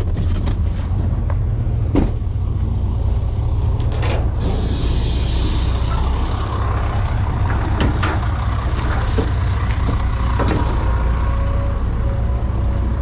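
Truck engine idling with a steady low rumble and scattered knocks. About four seconds in comes a hiss of air lasting about a second and a half, like an air brake releasing.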